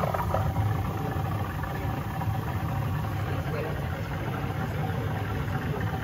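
Water and trapped air discharging from a boiler purge hose into a partly filled bucket, a steady rushing noise with a low rumble, as air is purged from a hydronic heating loop.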